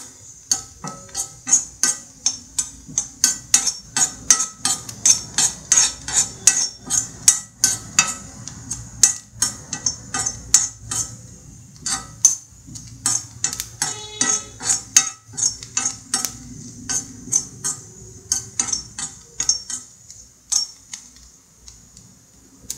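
Flat metal spatula scraping and tapping against a black iron kadai while stirring grated coconut frying in a little oil, about two to three clicks a second, sparser near the end.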